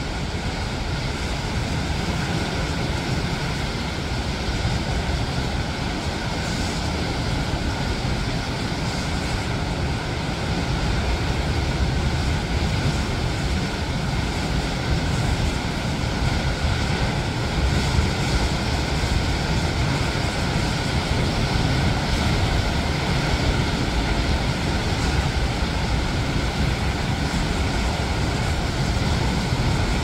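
Rough sea surf breaking over and around rocks: a steady, dense rumble of waves without pauses, a little louder from about ten seconds in.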